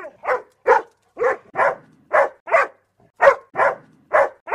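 A puppet dog's barks, voiced by a human performer: a string of about ten short woofs, two or three a second, with a short pause near the middle.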